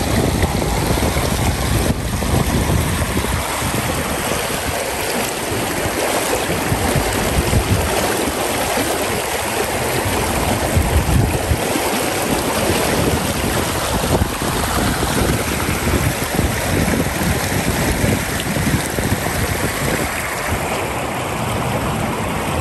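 River water rushing steadily over a low rock ledge and through a shallow rapid.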